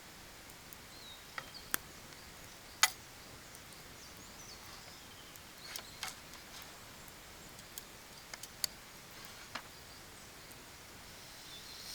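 Quiet outdoor ambience: a steady faint hiss with a few sharp, scattered clicks, the loudest about three seconds in, and faint bird chirps in the background.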